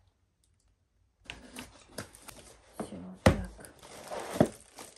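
A small cardboard box being opened and unpacked: scissors clicking and cutting, with cardboard and plastic packaging rustling. It starts about a second in, and there are two sharp knocks, the louder one past the middle and another about a second later.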